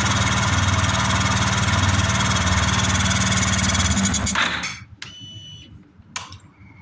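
Yamaha Fazer 250's single-cylinder engine idling steadily with the rubber intake piece removed from the air filter housing, then switched off about four and a half seconds in. A few faint clicks follow.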